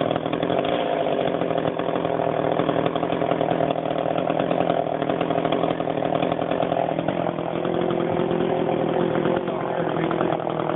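Chainsaw running steadily at working speed, its engine pitch dipping slightly about seven seconds in.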